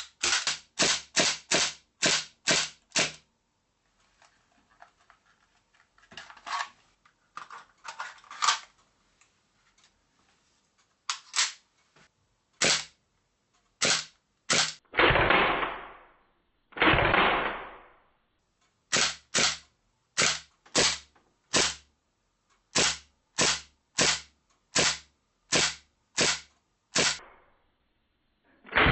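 Marushin AMT Automag gas blowback airsoft pistol firing semi-automatic, each shot a sharp crack with the slide cycling. The shots come in quick strings of about two to three a second, with faint clicks during a pause. Twice, about halfway through, a longer rushing burst lasts about a second.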